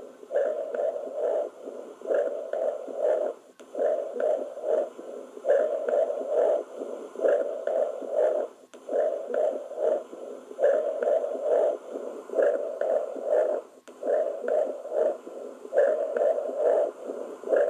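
Chest sounds heard through a stethoscope: muffled bursts about a second long, repeating about every one and a half seconds.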